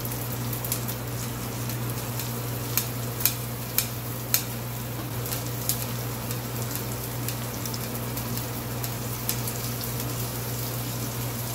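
Onions and garlic sizzling in rendered beef fat in a frying pan, with sharp clicks of kitchen scissors snipping ginger into the pan, most of them a few seconds in.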